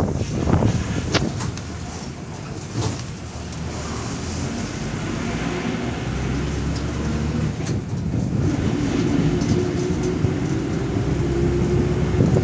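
Moving vehicle's engine and road noise: a continuous low rumble, with the engine note rising slowly through the second half as it picks up speed.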